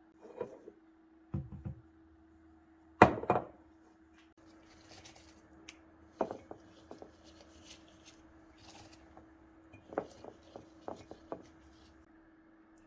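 Kitchen utensils and containers being handled: a loud double knock about three seconds in, then scattered light clicks and taps, over a faint steady hum.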